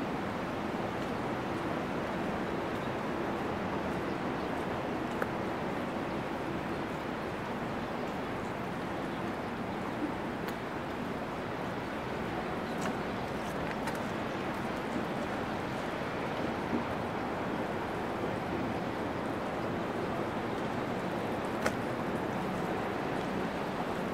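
Steady outdoor ambience: an even rushing noise, with a few faint isolated clicks.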